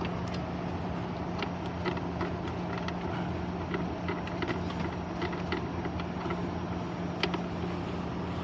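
A steady low machine hum with a constant drone, with scattered light clicks and taps over it; one tap near the end stands out.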